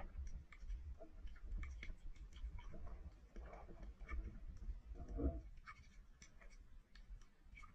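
Underwater ambience picked up by a submerged camera: scattered faint clicks and crackles over a low water rumble, with a short louder swish about five seconds in.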